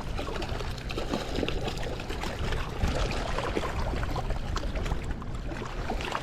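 Wind buffeting the microphone, with water lapping and splashing at the bank.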